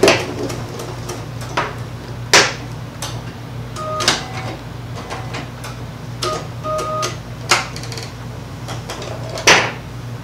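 Sharp clicks and taps from a computerized Bernina sewing machine's presser foot and from fabric and zipper being pulled out from under the foot, the loudest near the end. A few short electronic beeps from the machine come around the middle, over a steady low hum.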